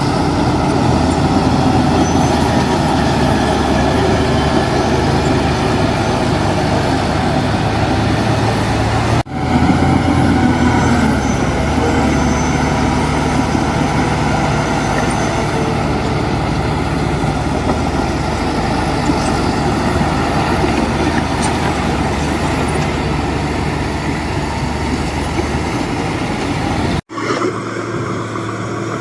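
Heavy earthmoving machinery's diesel engine running steadily under load, with abrupt cuts about nine seconds in and near the end.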